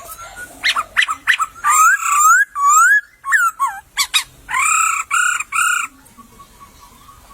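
Poksay (a laughingthrush) singing: a run of loud, clear whistled notes that slide up and down, closing with three strong, evenly spaced notes, then a pause.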